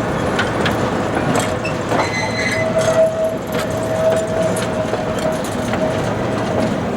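Small-gauge train running on its track: a steady rolling rumble with faint clicks of the wheels over the rails, and a thin steady squeal that comes up about two seconds in.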